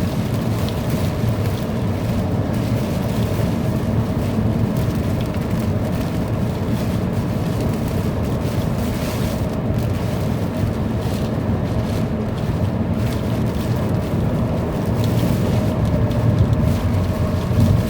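Steady roar of a heavy thunderstorm downpour, with strong wind buffeting the microphone.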